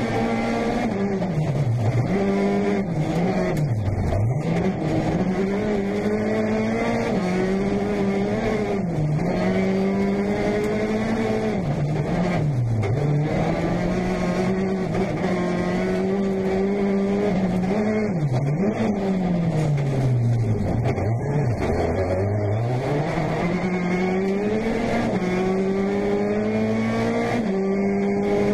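Peugeot 208 T16 R5 rally car's turbocharged 1.6-litre four-cylinder engine, heard from inside the cockpit, driven hard: revs climb through the gears and drop away sharply about eight times as the driver lifts and brakes for corners, then pick up again.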